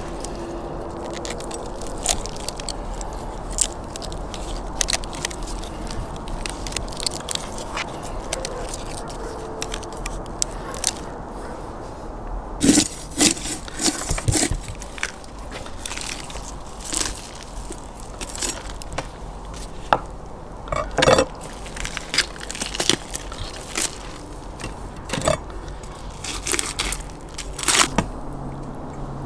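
A knife carving a whole roasted lamb on a wooden board: the crisp crust crackling, meat and joints tearing apart, and the blade scraping and knocking on the board. These come as scattered sharp cracks that get louder and more frequent about halfway through.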